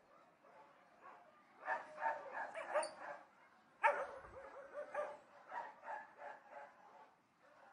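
Several dogs barking at a distance in quick, irregular flurries: one burst about two seconds in, then another opening with the loudest bark near four seconds and trailing off before the end.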